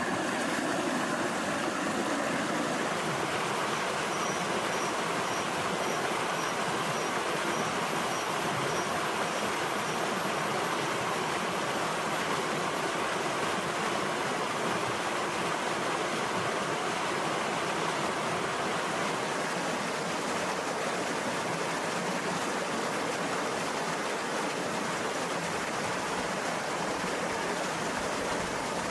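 A shallow rocky river rushing over stones, a steady, even rush of water.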